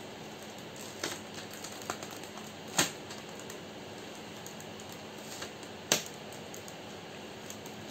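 Plastic keycaps being handled on a Rexus MX9 mechanical keyboard during a keycap swap: a few scattered sharp plastic clicks, the two loudest about three seconds apart.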